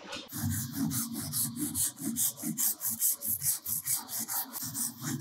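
Hand saw cutting an Orac C393 Steps cornice profile held in a mitre block, in quick, even back-and-forth strokes, several a second. The soft profile material cuts easily.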